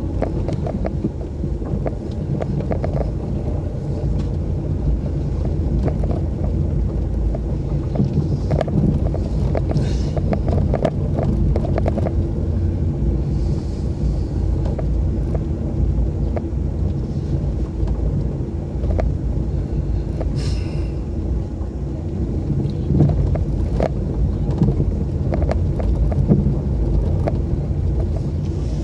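Car engine and tyre rumble heard from inside the cabin while driving, with many small rattles and clicks throughout.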